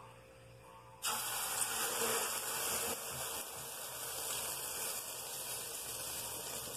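Egg-and-sardine batter poured into hot oil in a frying pan, setting off a sizzle that starts suddenly about a second in and carries on steadily, easing slightly. The oil is already very hot.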